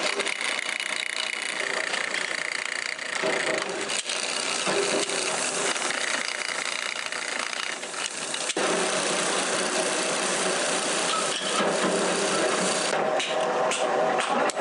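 Drill press motor running while its bit bores holes through thin steel knife blanks. A little past halfway the sound shifts abruptly to a steadier machine hum, and near the end a quick run of light clicks is heard.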